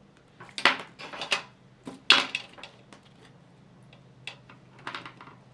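Eraser rubbing on a paper drawing sheet in several short scrubbing strokes, the loudest about two seconds in.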